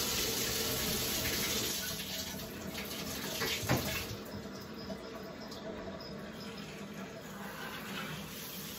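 Water running from a newly installed handheld shower head as it is turned on to test it, spraying into the tub with a steady rush. A single knock midway through.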